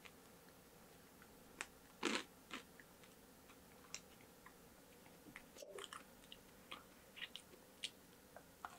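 Close-miked chewing of a mouthful of watermelon punch, heard as scattered wet clicks and smacks, the loudest about two seconds in. Midway a wooden spoon stirs the punch in the watermelon shell, and near the end another spoonful goes into the mouth.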